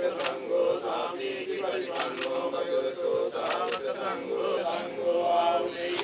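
Buddhist monks chanting Pali pirith in a steady, drawn-out unison drone, with scattered sharp clicks like camera shutters over it.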